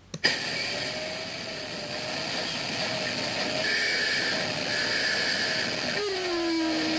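Deliberately over-processed audio clip playing back through laptop speakers from an audio editor: a click, then a steady loud hiss with faint wavering tones, and a low held tone that starts about six seconds in.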